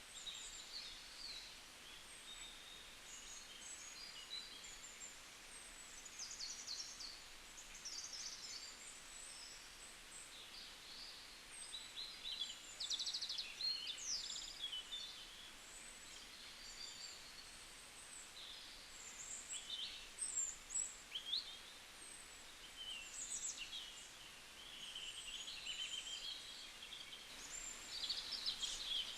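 Several birds chirping and calling, short varied notes and trills overlapping one another, over a steady faint hiss.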